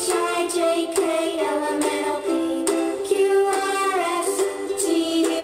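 Music playing through a small homemade mini amplifier, built on two D1047 transistors driving an 8-ohm speaker and fed from a phone. The music cuts off suddenly at the end.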